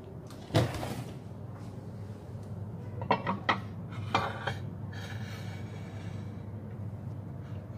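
Dishes and cutlery being handled: one loud knock about half a second in, then a few lighter clinks and knocks around three to four seconds, over a steady low hum.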